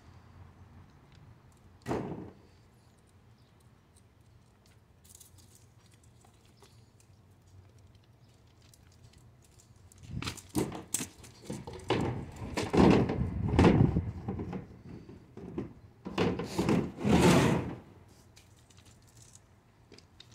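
Work boots stepping and shifting on loose river-rock gravel, the stones crunching and grinding underfoot in a run of loud steps through the second half. Earlier there is a single sharp knock, about two seconds in.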